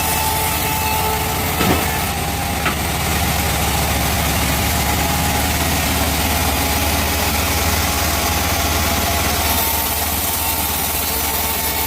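Sawmill band saw and its drive running steadily with a low engine-like hum, with two short knocks about two and three seconds in.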